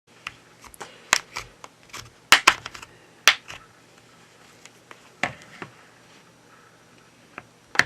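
Scattered sharp plastic clicks and taps from hand tools working on a smartphone's housing during disassembly. They are dense and loudest in the first few seconds, then come only now and then.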